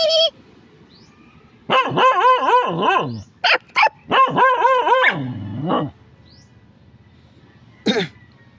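A dog barking in two quick runs of high, wavering barks, each about a second and a half long, with two short yips between them and a single short bark near the end.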